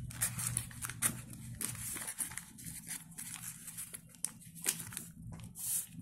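A sheet of A4 paper rustling and crinkling with irregular crackles as it is folded and tucked into place to close an envelope. A low steady hum runs underneath.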